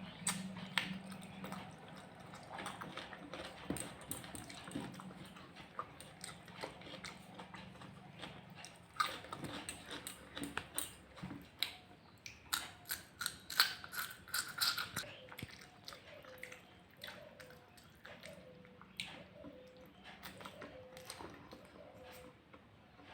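Close-up eating sounds of a person chewing and smacking on egg curry and white rice: wet mouth clicks and chewing, with a run of louder smacks in the middle.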